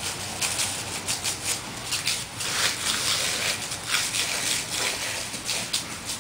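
Garden hose water spray hissing steadily, with irregular patters as the water hits the grass and leaves.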